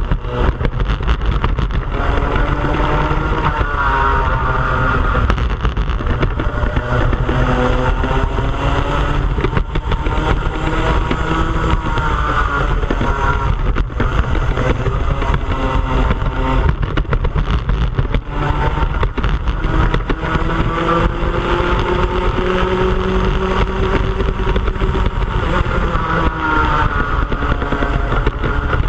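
Racing kart engine heard onboard at race speed, its pitch rising and falling over and over as it revs up and comes back off, under a steady low rumble.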